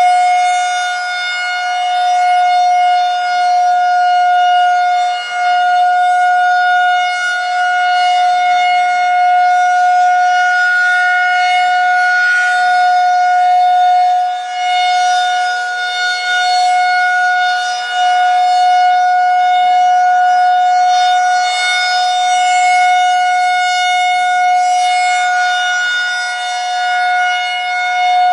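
Federal Signal 2001-130 rotating electromechanical outdoor warning siren sounding its steady Alert signal: one continuous tone held at a constant pitch. Its loudness swells and fades slightly as it goes.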